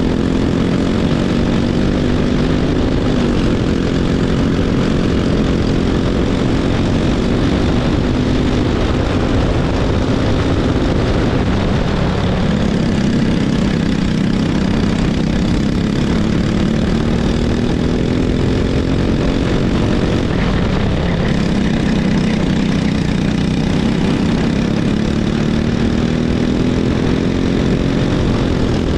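Racing go-kart engine running hard, its pitch climbing steadily along the straights and dropping sharply into corners a few times.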